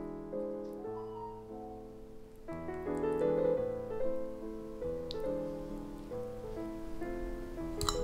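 Background piano music, with a light clink of a fork against a plate near the end.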